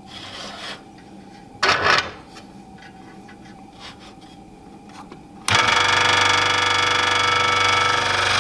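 Ryobi 16-inch variable-speed scroll saw starting up suddenly about five and a half seconds in and then running at a steady speed. Before that, a brief loud noise about two seconds in.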